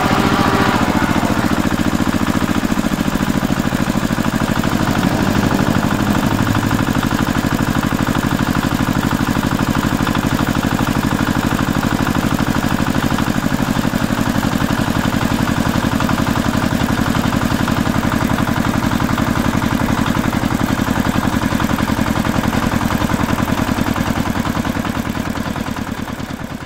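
Tractor engine idling steadily, with an even rapid chugging, fading out near the end.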